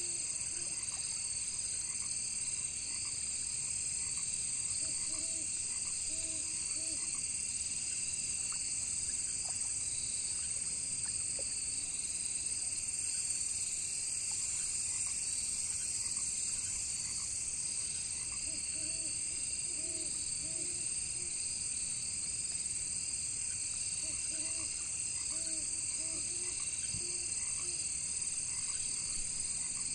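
Frogs croaking in short runs of three or four calls, a few times over, above a steady high chorus of crickets and other insects.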